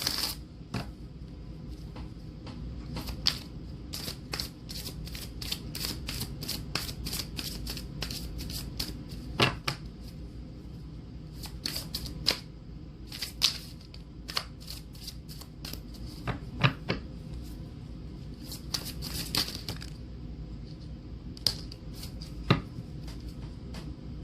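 Deck of oracle cards being shuffled by hand: a long run of quick papery clicks, fastest in the first half, then sparser with a few louder taps. A steady low hum lies underneath.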